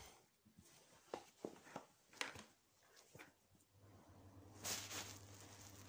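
Faint handling sounds: a few soft knocks and rustles as play-doh is kneaded and mixed by hand, with a low steady hum coming in about two-thirds of the way through.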